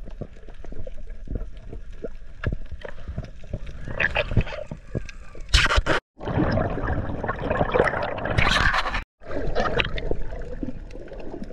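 Underwater water noise picked up by a freediver's camera: scattered sharp clicks and crackle over gurgling water, then louder stretches of bubbling and splashing. The sound drops out abruptly twice, at cuts.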